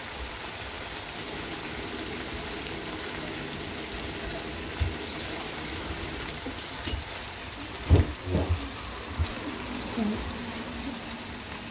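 Chopped onions and tomatoes sizzling steadily in oil on an iron tawa. A few dull knocks come about two-thirds of the way in.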